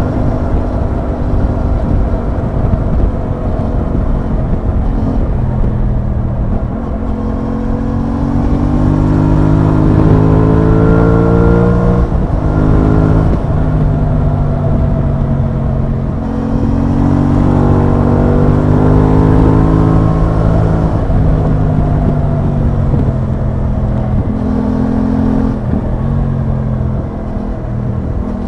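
Aprilia Tuono 660's parallel-twin engine under way, its pitch climbing as it accelerates and dropping back at gear changes several times, over a steady rush of wind and road noise.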